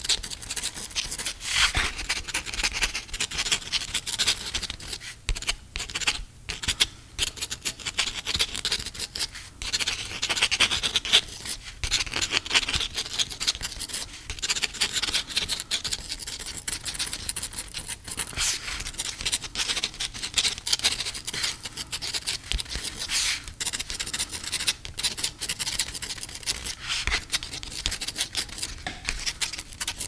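Pen writing on paper: quick scratching strokes that run on almost continuously, broken by a few short pauses.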